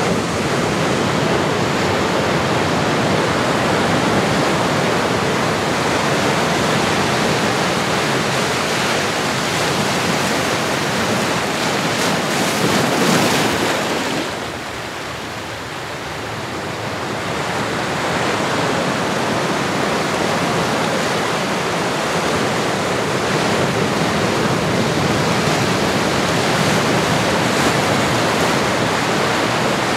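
Ocean waves washing on a shore in a steady rushing wash. One wave swells to a peak about halfway through and then drops away for a few seconds before the wash builds again.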